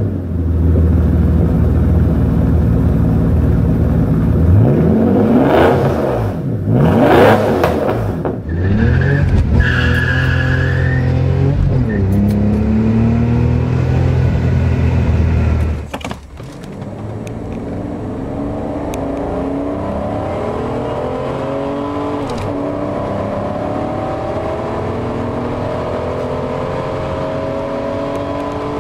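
BMW M70 V12 engine, first running through a straight-pipe exhaust with a low, steady note and a few quick revs. Later it is heard accelerating, its pitch climbing steadily.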